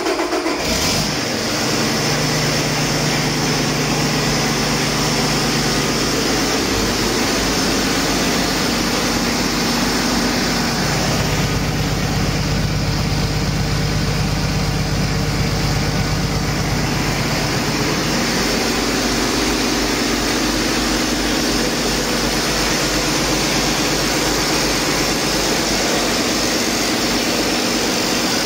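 Paccar MX13 inline-six diesel engine running steadily at idle on a test stand, just after starting.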